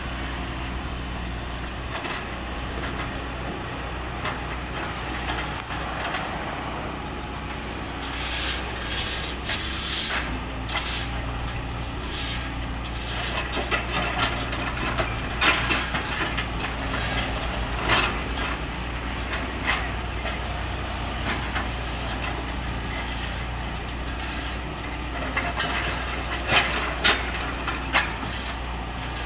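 A heavy engine runs steadily throughout. From about a third of the way in, irregular scrapes and knocks from road repair work come over it.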